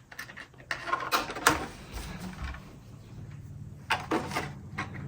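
Scattered clicks and scrapes of plastic zip ties being pushed through drilled holes in a clear Lexan RC body and snugged loosely into place.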